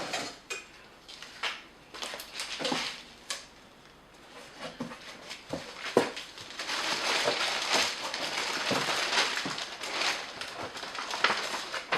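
Packaging being handled while items are pulled out of a cardboard box: scattered light knocks and clicks, then several seconds of steady rustling from about halfway in.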